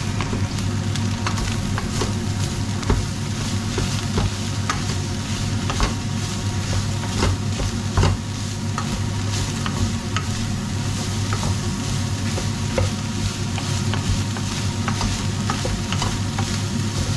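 Ground beef and bacon sizzling as they fry in a pot, with a utensil scraping and knocking against the pot at irregular intervals while it is stirred.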